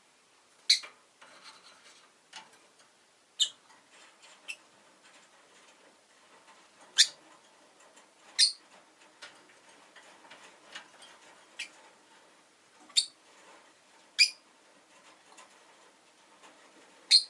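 Rosy-faced lovebird giving short, sharp, high-pitched chirps at irregular intervals, about seven loud ones with fainter calls in between.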